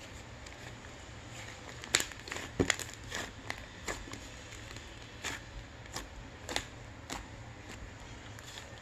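Shaving foam being squished and worked by hand, giving a string of irregular sharp clicks and wet crackles, the loudest about two to three seconds in.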